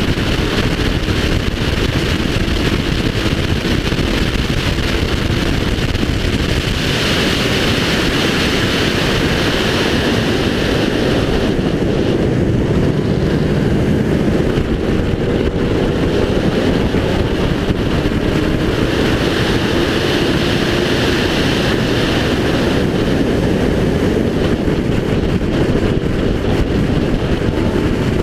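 Race car engine running hard at speed, with heavy wind noise on the microphone; the engine pitch rises and falls as the car accelerates and slows through the corners.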